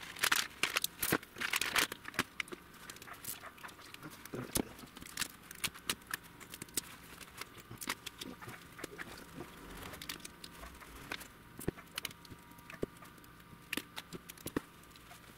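Cylindrical battery cells in cardboard tubes, with their tin-coated copper braid straps, clicking and clattering as a battery pack is pulled apart by hand and the pieces are set down on a workbench. The sharp clicks come throughout and are loudest in the first two seconds.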